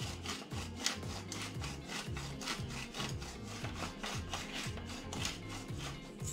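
Hand pepper mill grinding black pepper, a dry crunching rasp in quick repeated twists.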